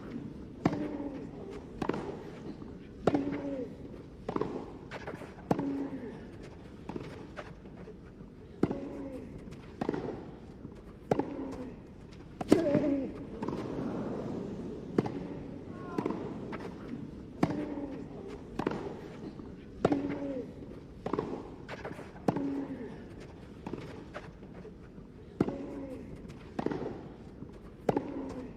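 Tennis rally: racket strikes on the ball about once a second, back and forth, each followed by a player's short grunt.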